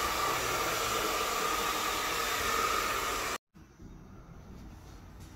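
Hand-held hair dryer blowing steadily, an even rushing noise with a faint steady whine. It cuts off suddenly about three and a half seconds in, leaving faint room sound.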